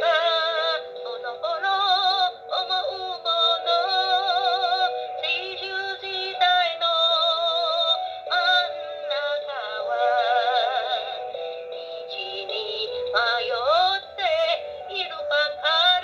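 A woman singing a Japanese song in phrases with strong vibrato, over a music backing.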